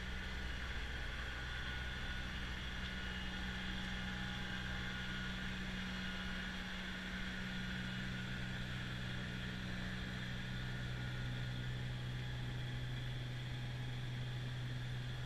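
Kubota BX2660 compact tractor's three-cylinder diesel engine and front-mounted snowblower running steadily at a distance, with a constant hiss over a low hum. The engine note shifts lower about halfway through.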